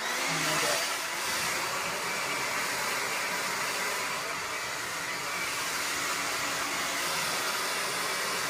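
John Frieda Full Volume hair dryer switched on and blowing steadily, a loud even rush of air and motor whine, starting abruptly as it is switched on.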